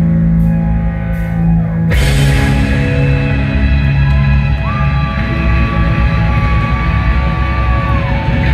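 Instrumental post-rock band playing live with electric guitars, bass and drums. A held chord gives way about two seconds in to a sudden loud full-band entry. Later a long high guitar note is held over it and bends down as it ends.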